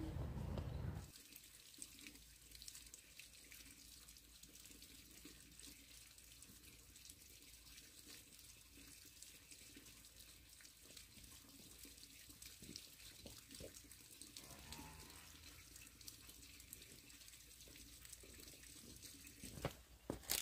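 Near silence: a low rumble cuts off about a second in, leaving a faint trickle of water with light ticking, and a few knocks near the end.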